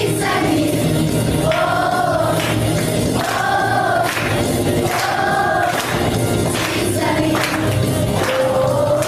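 A class of schoolchildren singing together in chorus over a backing track, with several notes held for about a second each.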